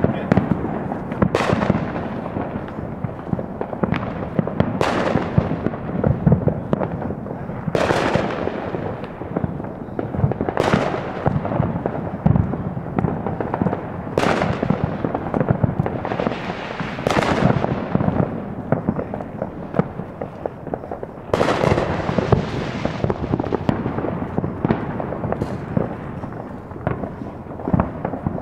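Fireworks and firecrackers going off in a steady barrage: a sharp bang every second or two, each with a long echoing tail, over continuous crackling and popping.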